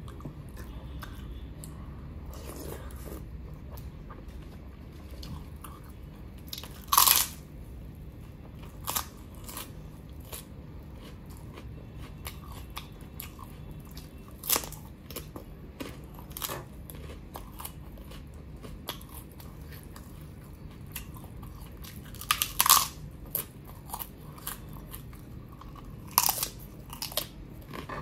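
Crisp papad being bitten and crunched close to the microphone, with lighter chewing and mouth sounds between. Sharp, loud crunches come about a quarter of the way in and twice near the end. A steady low hum sits underneath.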